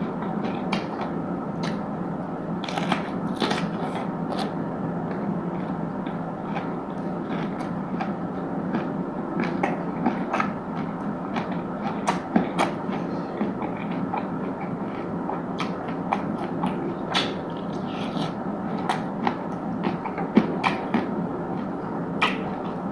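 A person chewing and biting food close to the microphone: irregular crisp crunches and wet mouth clicks over a steady background noise.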